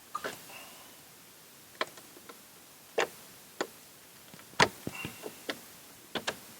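Hard plastic clicking and snapping as an interior light housing is pried out of a 2019 Dodge Charger's trim panel: about a dozen sharp clicks at uneven intervals, the loudest about four and a half seconds in.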